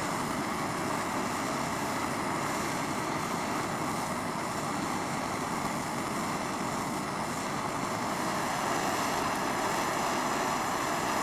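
Blowtorch flame burning with a steady rushing hiss as it heats a hinge to red hot, a little louder over the last few seconds.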